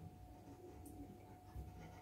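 Near silence: faint room tone with a thin steady whine, a few soft clicks and a soft low knock about one and a half seconds in.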